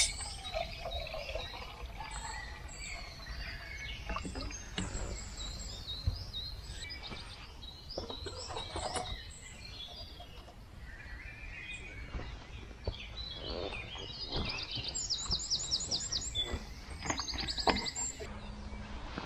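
Woodland birdsong: several small birds chirping and whistling, with two quick runs of rapid repeated high notes near the end. Scattered crunches of footsteps on dry leaf litter underneath.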